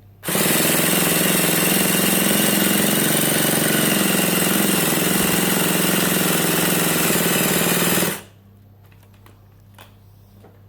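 Electric starter spinning a nitro RC car engine for about eight seconds, a steady, even, loud buzz that starts and stops abruptly, with a few faint clicks afterwards. The engine does not catch: the nitro engine won't start.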